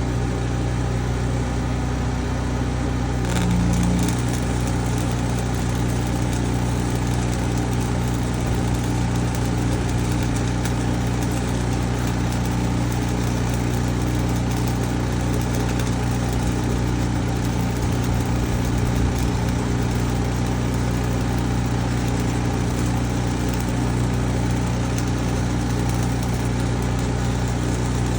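An engine running steadily at constant speed, with an even low hum.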